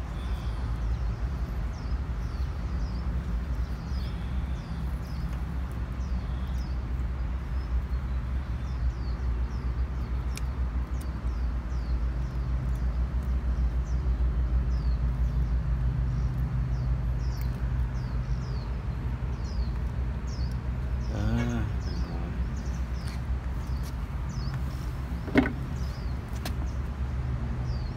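A steady low mechanical hum, like a motor running, with short high chirps repeating above it and a sharp click about 25 seconds in.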